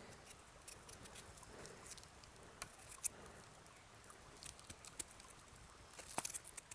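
Faint, irregular small clicks and scrapes of a knife blade paring the skin off a raw potato.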